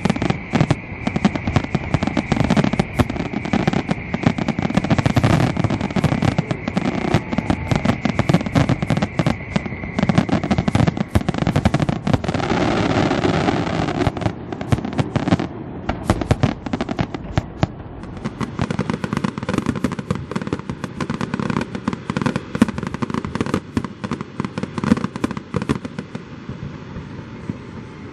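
Fireworks display: a dense, continuous run of cracks and bangs from aerial shells and crackling effects, with a high steady whistle for the first ten seconds or so. The bangs thin out somewhat in the last third.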